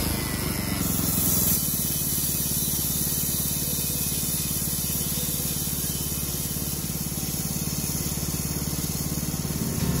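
Portable band sawmill running steadily, its gas engine pulling the bandsaw blade through a log cant, with a steady hiss of sawing over the engine. The higher hiss eases about a second and a half in while the engine note stays even.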